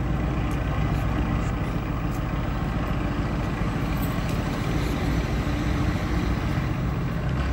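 Mercedes-AMG GT sports car's V8 engine running at a steady idle, a low even rumble with no revving.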